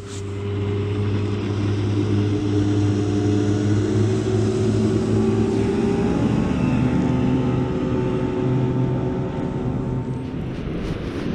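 Outboard motor running steadily, its pitch shifting about six seconds in.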